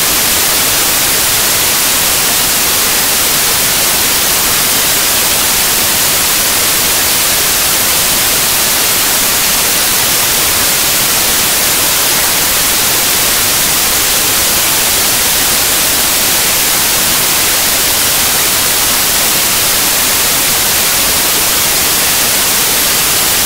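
Loud, steady hiss of static-like white noise, unchanging throughout, with no tones or separate events.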